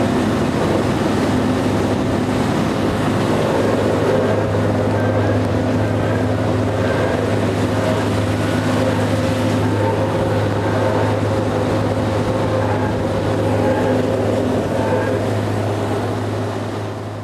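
Drilling rig machinery running with a steady low drone and a hum, fading out just before the end.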